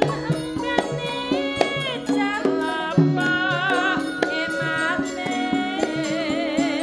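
Javanese gamelan music: kendang drum strokes and struck gamelan notes, with a female sinden singing a long wavering line over them.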